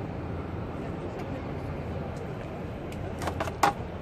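Exhibition hall background: a steady low rumble of crowd and hall noise. About three seconds in come a few quick sharp clicks or knocks, and the last one is the loudest.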